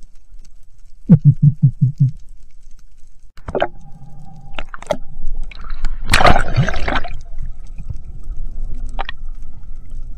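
Underwater sounds picked up by a spearfisher's camera: a quick run of about six low thumps a second in, a few sharp clicks, then a loud rushing burst of about a second around six seconds in, as the picture blurs with fast movement through the water.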